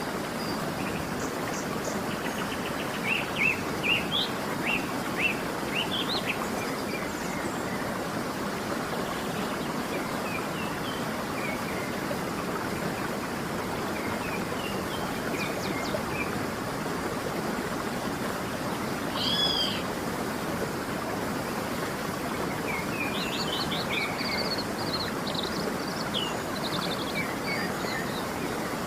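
Waterfall rushing steadily, with birds chirping over it in scattered runs of short quick notes and a louder two-note call about two-thirds of the way through.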